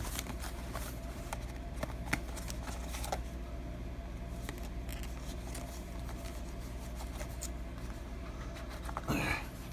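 Small cardboard knife boxes being opened and handled: scattered light clicks and rustles over a steady low hum, with a brief louder rustle near the end.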